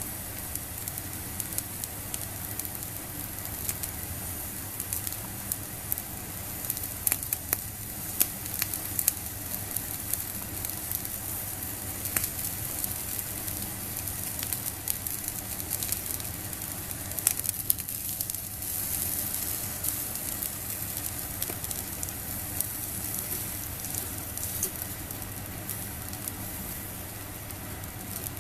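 Squid sizzling on a wire grill net over a small solid-fuel fire, a steady hiss broken by frequent sharp pops and crackles.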